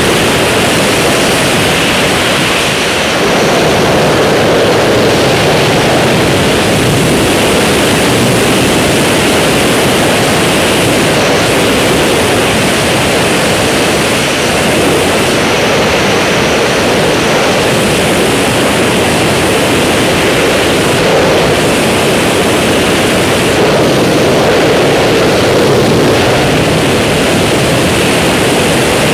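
Steady, loud rush of wind blasting across the microphone in skydiving freefall, with no engine tone to be heard.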